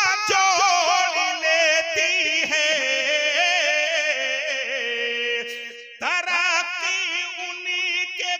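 A man singing a naat unaccompanied into a microphone, drawing out one long wavering melismatic phrase that slowly falls in pitch. It breaks off about six seconds in, and a new phrase begins.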